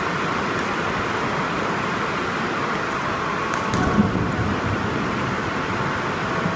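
Steady rushing hiss of ventilation fans in a large badminton hall, with a few sharp clicks of rackets striking the shuttlecock during a doubles rally and a brief louder sound about four seconds in.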